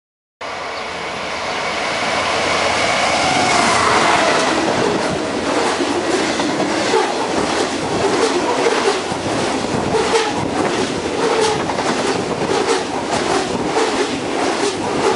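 Freight train of EWS hopper wagons passing close at speed: a steady rumble with a quick, regular clacking of wheels over the rail joints. The sound cuts in suddenly just after the start.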